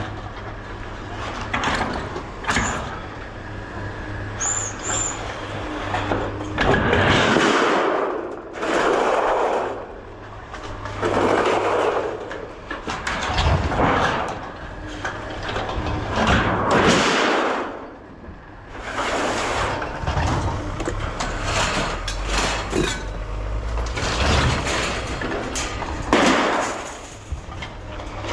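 Scrap being worked by hand: repeated scraping and rasping noises, one every couple of seconds, over a steady low hum.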